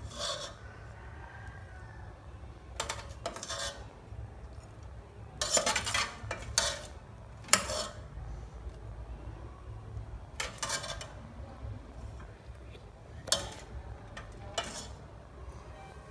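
A metal utensil clinking and scraping against a cooking pot and a plate, in about eight short, separate strokes a second or more apart, over a low steady hum.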